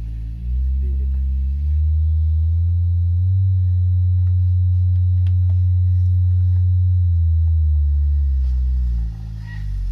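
Low bass sine test tone that steps up in pitch over the first two seconds, holds steady, then steps back down near the end.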